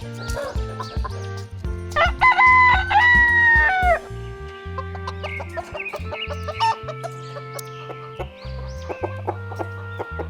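A rooster crowing once, loud and about two seconds long, starting about two seconds in and dropping in pitch at the end, with hens clucking around it over steady background music.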